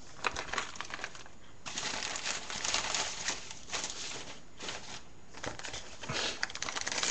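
Plastic packaging crinkling as it is handled, with scattered small clicks and rustles; the crinkling is densest for a couple of seconds starting about two seconds in.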